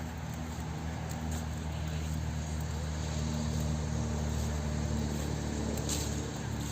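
Low, steady engine hum of a motor vehicle, swelling through the middle and easing slightly near the end.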